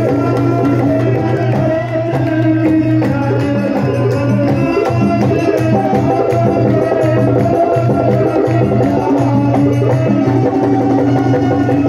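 Instrumental interlude of a live Hindi bhajan band: an electronic keyboard plays a steady melody over a hand-drum rhythm.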